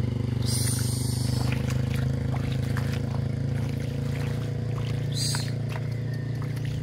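A small engine running steadily with a low, even hum, joined by short hissing bursts about half a second in and again about five seconds in.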